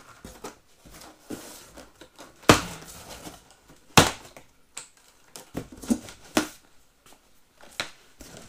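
Plastic packing straps around a cardboard box being cut with a knife and pulled off, each strap snapping sharply as it parts, loudest about two and a half and four seconds in. Softer clicks and rustling of strapping against cardboard come in between.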